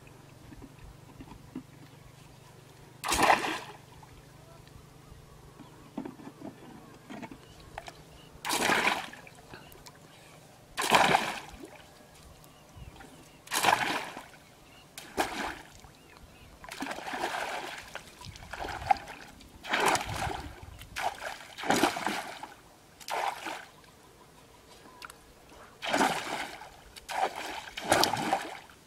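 A long bamboo pole swept and slapped through shallow, muddy water, making about a dozen separate splashes at uneven intervals a second or three apart. A faint steady low hum lies under the first third.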